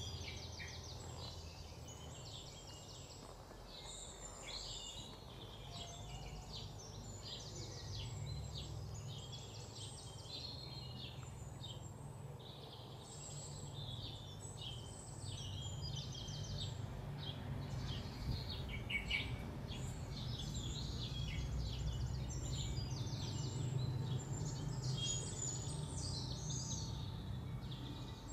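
Many small birds chirping and twittering over a low steady rumble that grows a little louder about halfway through.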